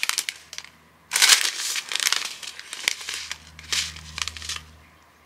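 Plastic bags of diamond painting drills crinkling as they are handled, in three bursts with short pauses between.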